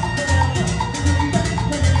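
Live dance band playing an upbeat Latin dance tune, with a drum kit keeping a steady beat under brass.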